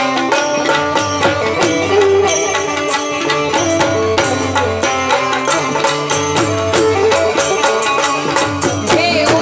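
Live Gujarati folk music: harmonium and electronic keyboard playing a melody over a fast, steady percussion beat.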